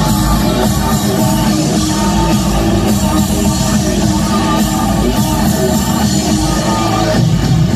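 Loud live industrial band music through a concert PA: a dense, unbroken wall of sound with a heavy bass end.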